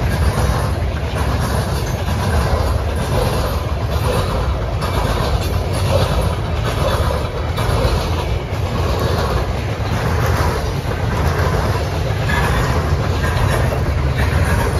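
Covered hopper cars of a freight train rolling past: a steady, loud rumble of steel wheels on the rails, with scattered clacks of wheels over rail joints.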